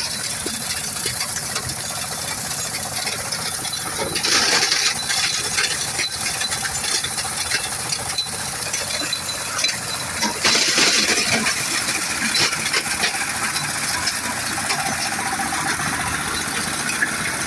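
Stone-crushing machine running, grinding river stones into sand: a steady, dense mechanical rattle, with louder stretches about four seconds and ten and a half seconds in.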